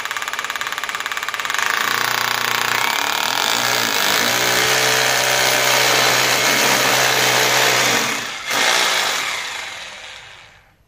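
Corded hammer drill boring into a concrete pillar, the motor running steadily with rapid hammering. About eight seconds in it eases off, surges briefly once more, then winds down and stops just before the end.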